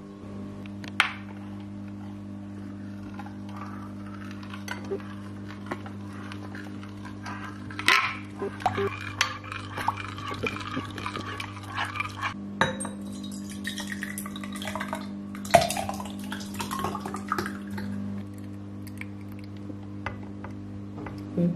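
Metal spoon stirring a thick watermelon and condensed-milk mixture in a glass bowl, clinking and scraping against the glass at irregular moments, with a few sharper clinks standing out. A steady low hum runs underneath.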